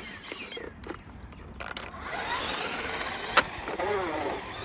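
Radio Shack Golden Arrow RC car's small electric motor whirring and its tyres rolling, picking up about two seconds in with the pitch swooping up and down as it speeds and slows, with a sharp click partway through. It is running on weak batteries that the owner judges nearly dead.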